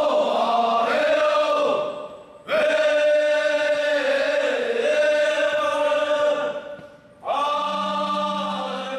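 A group of voices singing a Paiwan traditional chant in long, sustained phrases, breaking off briefly for breath about two and seven seconds in.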